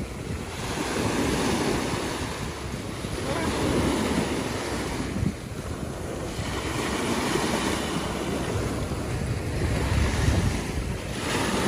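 Ocean surf breaking and washing up the beach, swelling and fading every few seconds, with wind buffeting the microphone.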